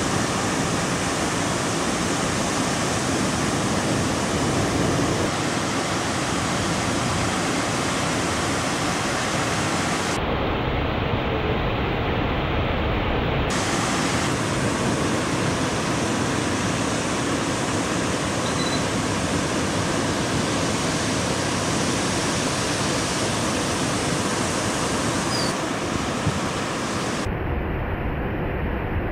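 Ocean surf breaking, a steady rushing roar of waves. About ten seconds in the sound turns abruptly duller and deeper with more low rumble, brightens again a few seconds later, and turns dull once more near the end.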